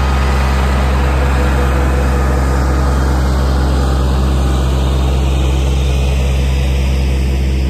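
Mahindra eMax compact tractor's diesel engine running steadily under load as the tractor drives off with a full loader bucket of dirt. Its higher sounds fade from about halfway through as it moves away, while the low engine note stays strong.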